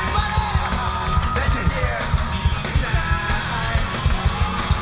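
Loud rock music with a fast, steady drumbeat and shouted vocals.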